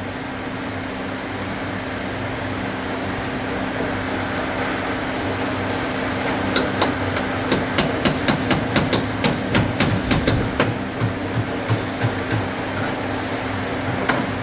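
A hammer tapping on car body metal: a quick run of about twenty light, sharp strikes, roughly four or five a second, with a few stray taps after, over a steady workshop hum.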